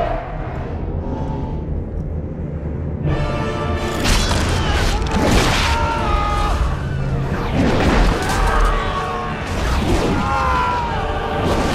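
Film battle soundtrack: dramatic orchestral score over deep booming impacts. The sound is thinner for the first three seconds, then swells into a fuller, brighter mix of sustained music and heavy hits.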